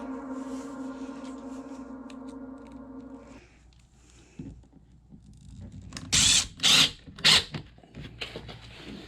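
Background music with long held tones stops about a third of the way in. A few seconds later come three short, loud scuffs or crunches about half a second apart.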